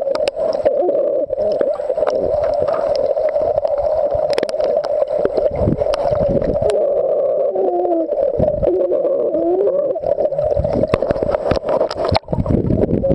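Muffled underwater sound of a swimming pool heard through a submerged camera: a steady drone with low rushing and sloshing of water that swells and dips as swimmers move around it, plus scattered sharp clicks.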